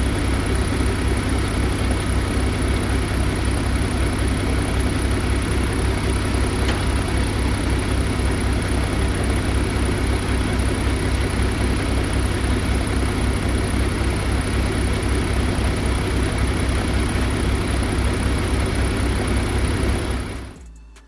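Diesel engine of a 2019 Kenworth T680 semi truck idling steadily with an even low pulse, running while the AC system is charged with refrigerant. It fades out near the end.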